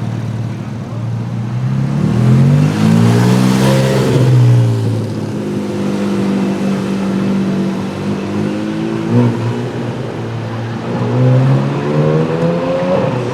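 Sports car engine accelerating hard: the pitch climbs, falls sharply at an upshift about four and a half seconds in, holds steady, then climbs again near the end.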